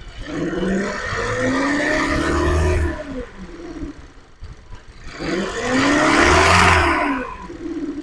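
Kia Optima 2.4-litre four-cylinder engine revved twice from idle, pitch rising and falling each time. It carries a rumble that grows with revs and comes from between engine and transmission; it sounds like loose torque converter bolts, though the owner has found them tight.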